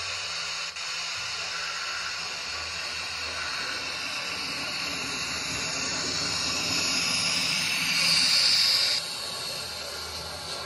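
Simulated steam hiss from the sound decoder of a Märklin H0 model class 44 steam locomotive, steady with a low hum beneath. It swells into a louder blast of steam about eight seconds in that cuts off suddenly a second later.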